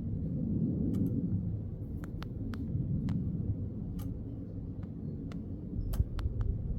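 Steady low background rumble with a dozen or so short, sharp clicks at irregular intervals and a low thump near the end.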